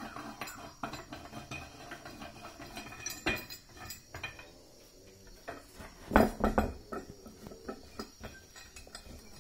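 Metal clinks and knocks from a homemade steel pipe clamp as its sliding jaw is moved along the pipe and locked in place, with a louder cluster of knocks about six seconds in.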